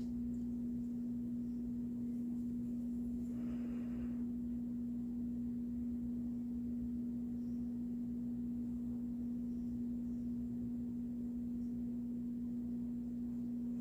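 A steady low hum on one pitch, with a faint soft rustle lasting under a second about three seconds in.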